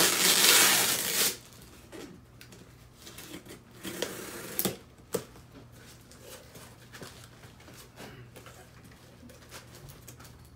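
Packing tape torn off a cardboard shipping box in one loud rip lasting about a second, then the cardboard being handled: a shorter scraping rustle with a couple of sharp clicks about four seconds in, and light taps afterwards.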